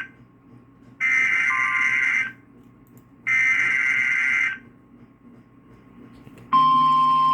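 Emergency Alert System SAME header data bursts on NOAA Weather Radio: two harsh digital screeching bursts, each a little over a second long and about a second apart, encoding the coming severe thunderstorm warning. About six and a half seconds in, the steady 1050 Hz weather radio warning alarm tone starts, signalling that a warning follows.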